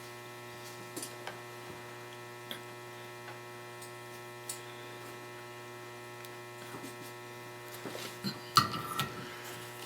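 Steady electrical mains hum with a few faint clicks. There are a couple of louder knocks near the end.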